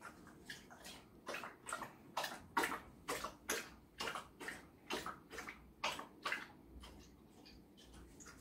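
Labrador retriever lapping water from a bowl, about three laps a second, then stopping about two-thirds of the way through.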